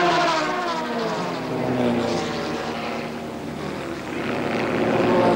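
Formula 2 racing cars at high revs passing in close succession. Their engine pitch falls as they go by, and near the end another car approaches with its pitch rising.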